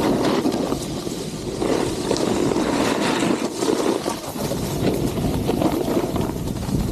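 Snowboard edges scraping and carving over packed snow, mixed with wind rushing over the microphone, a rough rumbling hiss that swells and eases with the turns.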